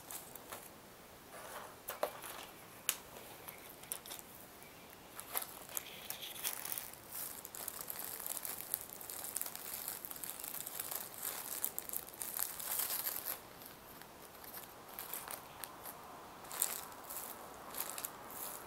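Fingernails and fingers scratching and crinkling thin HDPE and LDPE plastic bags: a run of sharp clicks and crackly rustling, busiest through the middle, easing off for a couple of seconds, then picking up again near the end.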